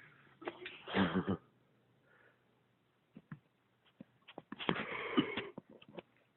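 A man's throat sounds: a short, pulsing throaty noise about a second in and a longer, rougher, breathy one around five seconds, with small clicks between.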